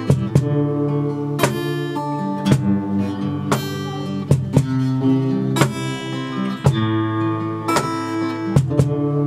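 Two acoustic guitars playing a slow song together with no voice, strummed chords and a sharp strike roughly once a second.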